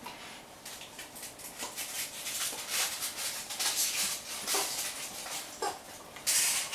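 Black Labrador puppy chewing and mouthing a plush toy: a quick run of rustling and clicking from teeth on fabric, with a few short high squeaks, and a louder burst of rustling near the end.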